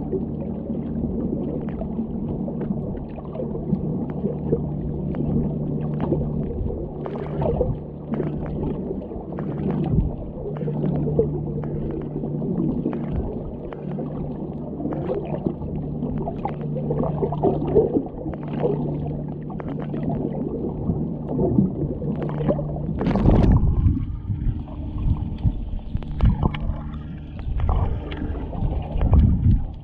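Underwater recording of a moored vessel's machinery: a steady low hum carried through the water, with scattered clicks and crackles. About three-quarters of the way through, a loud splashing rush breaks in and the hum drops away.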